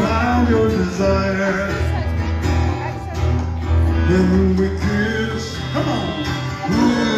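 Live rock band playing at full volume with a singer, a melodica blown at the microphone among the instruments.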